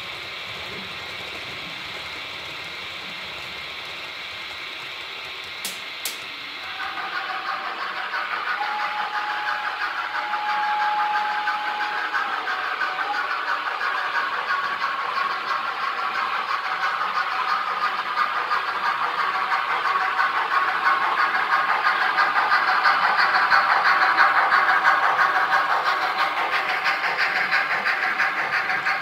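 Model steam trains running on a layout: a steady rolling rumble of wheels on track with motor hum. It gets louder about a quarter of the way in and builds as a train comes closer, peaking near the end. Two sharp clicks come just before the rise, and a steady single tone holds for a few seconds just after it.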